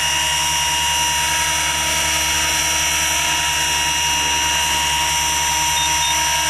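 Compass Atom 500 electric RC helicopter flying low: a steady whine of the electric motor and drive gears over the hum of the spinning rotors, unchanging in level.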